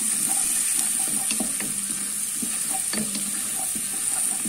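Chopped onions with turmeric sizzling steadily in hot fat in a pot, with scattered light clicks and scrapes of a wooden spatula stirring them against the pan.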